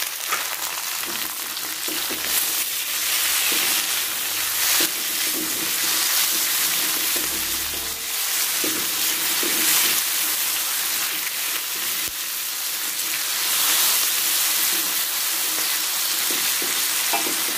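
Tomato wedges, chilies, shallots and garlic sizzling in hot oil in a wok, with a spatula stirring and scraping them around the pan.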